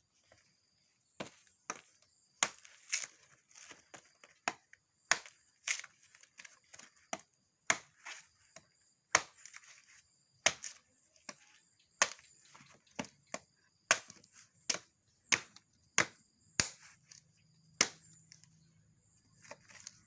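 A blade chopping a young coconut: about two dozen sharp, separate chops at an uneven pace, roughly one or two a second.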